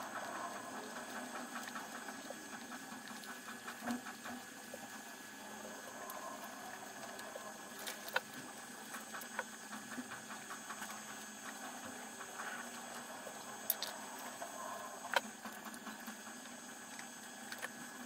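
Light scratchy patter of thread being pulled and wound around small copper-plated nails on a string-art board, with a few sharp ticks in the second half, over a steady faint high hum.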